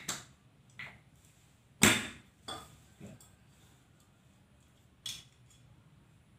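Small hard objects being handled, an aerosol can and small metal or plastic parts, giving about six short clicks and knocks. The loudest comes about two seconds in, and the last stands alone near the end.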